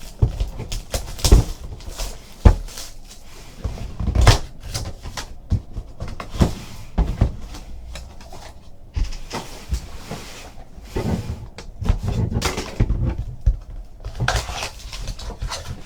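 Cardboard trading card boxes being handled and opened by hand: a series of scattered knocks and taps with stretches of rustling.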